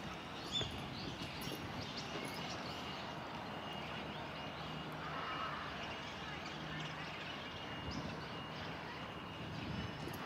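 Outdoor ambience: a steady background hiss and hum, with a short high bird chirp about half a second in.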